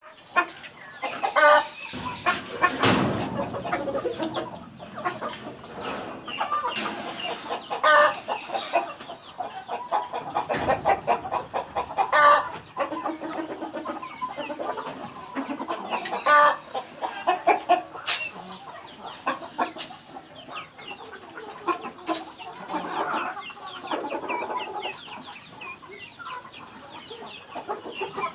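A flock of country chickens clucking and calling continuously, with louder single calls breaking out every few seconds.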